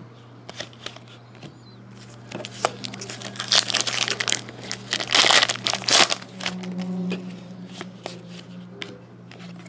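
Foil wrapper of a hockey trading-card pack being torn open and crinkled by hand, loudest a few seconds in, then easing off.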